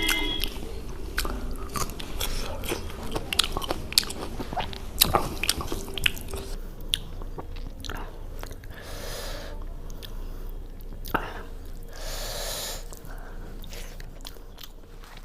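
Close-miked eating of spicy chicken, rice and puri: wet, clicky chewing, busy at first and then sparser, with two short hissing rushes of noise in the second half.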